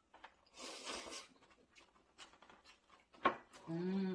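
A person slurping spicy dressed noodles in one hissy pull about half a second in. A sharp click a little after three seconds, then a short vocal sound of even pitch near the end.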